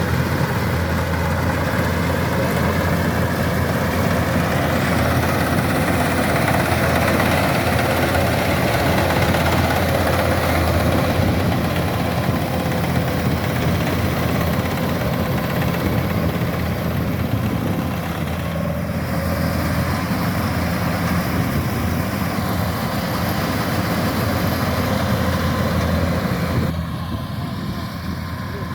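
Kubota rice combine harvester running, a steady engine drone with an even rushing noise from the machine over it; it becomes quieter near the end.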